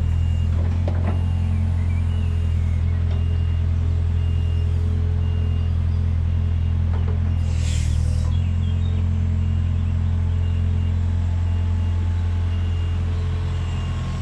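Yanmar diesel engine of a 2004 Takeuchi TB145 mini excavator idling steadily, with a brief hiss about halfway through. A faint high beep repeats at a regular pace over the engine.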